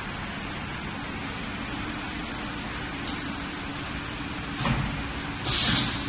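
Automatic braided-sleeving threading machine for wire harnesses running with a steady hum. A short knock comes about four and a half seconds in, then a louder, brief burst of hiss near the end, as the harness is fed through.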